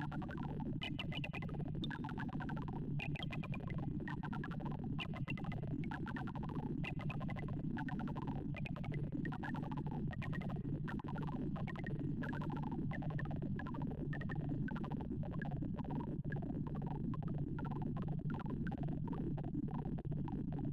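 Sorting-algorithm sonification from ArrayV: a rapid, unbroken stream of short synthesized tones, each pitch following the height of the bar being compared, as Slow Sort works through 64 values. The tones hop up and down in small clusters over a steady low drone.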